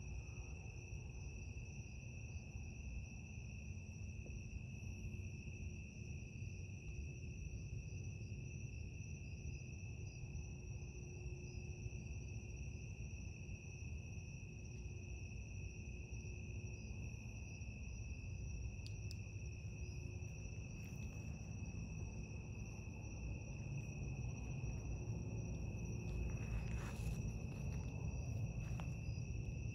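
Steady chorus of night insects, a continuous high trill that holds at two even pitches, with a few faint clicks near the end.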